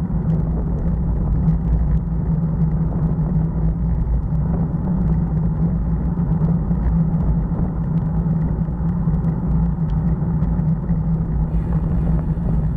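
Steady low rumble of wind buffeting a bicycle-mounted camera's microphone while riding, mixed with tyre noise on the asphalt and a few faint ticks.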